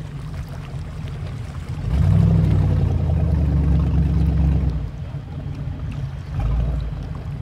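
Motorboat engine running with a steady low rumble, getting louder for about three seconds from about two seconds in, then dropping back.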